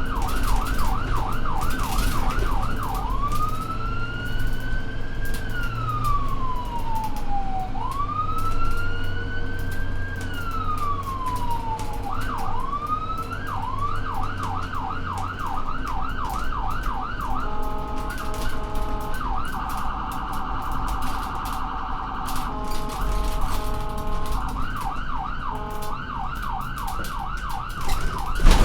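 Electronic emergency-vehicle siren switching between modes: a fast yelp at about three sweeps a second, then a slow rising and falling wail, a stretch of rapid pulsed tones in the second half, and the yelp again near the end. A low rumble runs underneath.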